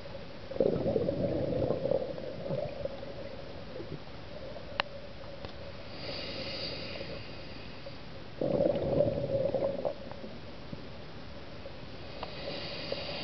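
Scuba regulator breathing recorded underwater: two exhalations burble out as bubbles, about half a second in and again about eight seconds in, each lasting a second or so, with softer inhalation hisses through the regulator about six seconds in and near the end. A steady hum runs underneath.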